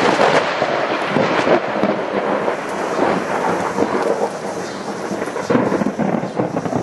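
Thunder crashing and rolling in a thunderstorm, loudest at first and slowly fading, with another swell of rumbling about five and a half seconds in.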